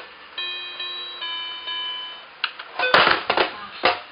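Children's toy electronic keyboard playing two held synthesized notes, one after the other. These are followed by a quick cluster of clicks and noisy percussive hits about two and a half seconds in.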